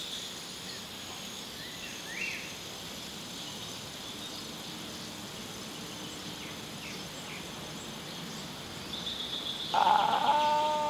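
Steady outdoor background with a few faint bird chirps. Near the end a loud, long, steady whine starts and holds its pitch.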